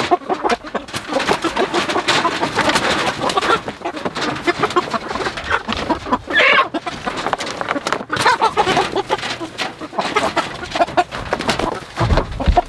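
Meat chickens clucking and squawking as they are caught by hand and loaded into a plastic poultry crate, with wing flaps and handling clatter. One louder squawk comes about six and a half seconds in, and a low thump near the end.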